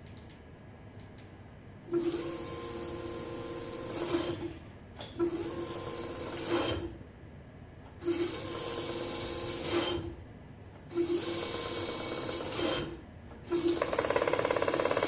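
A small motor runs in five bursts of two to three seconds each, with a steady hum and a harsh noise over it.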